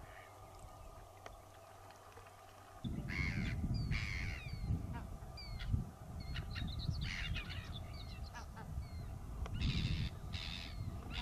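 Birds calling: several harsh caws with short high chirps in between, over a low irregular rumble that starts about three seconds in.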